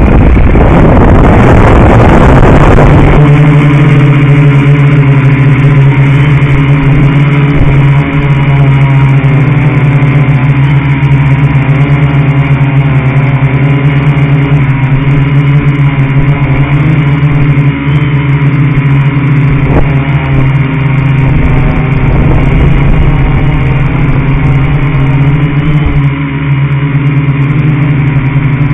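Small electric motors of a remote-controlled model running very close to the microphone. They give a steady, loud hum made of several even pitches, after a rush of noise in the first three seconds.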